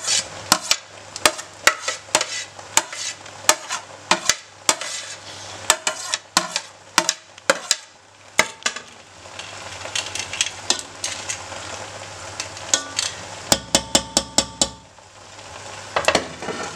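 A metal spoon scraping and knocking against the biriyani pot as the remaining cooked rice is spooned over the chicken layer: irregular clicks and taps, with a quick run of several taps about two-thirds through. A low sizzle from the pot runs underneath.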